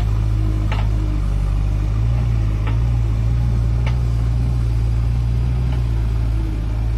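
Diesel engine of a JCB 3DX backhoe loader running steadily, its pitch rising a little about two seconds in, with a few short knocks over it.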